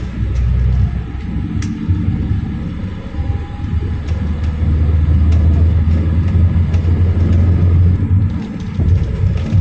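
Inside the passenger cabin of a 2017 GAZelle Next minibus under way: a steady low rumble from its Evotech engine and the road. The rumble grows louder about three seconds in and eases slightly near the end.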